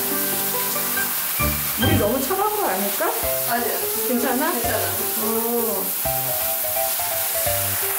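Handheld shower spraying water with a steady hiss, under background music.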